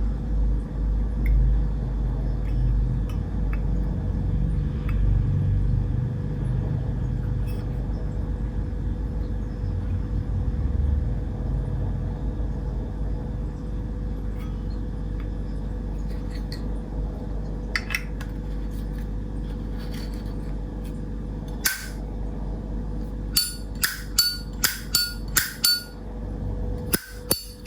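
Steady low hum, then near the end a quick run of sharp metallic clicks, about two to three a second, each with a brief ring: the lid of a vintage Zippo lighter being snapped open and shut over and over to show off its ringing click.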